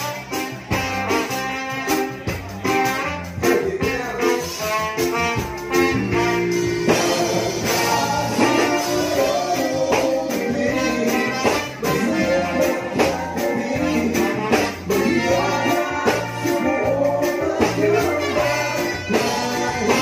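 Live horn band playing an upbeat number: drums, bass, electric guitar and keyboard, with trumpet and trombone.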